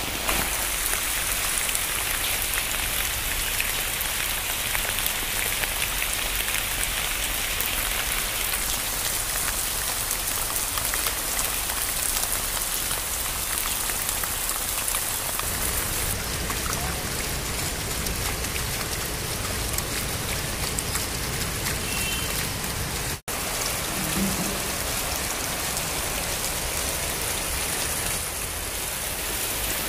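Monsoon rain falling steadily, a dense patter of drops on surfaces. It breaks off for an instant about three-quarters of the way through.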